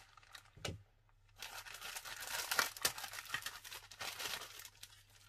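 Clear plastic kit bag crinkling and rustling as it is pulled open and off the plastic model parts, with a single crackle just under a second in and a dense run of crinkling from about a second and a half to four and a half seconds.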